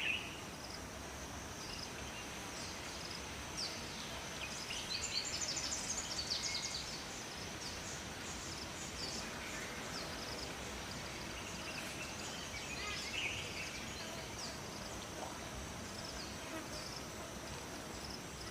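Forest ambience: a steady rush of flowing water with small birds chirping over it. A flurry of quick chirps comes about five seconds in, and a few more come later.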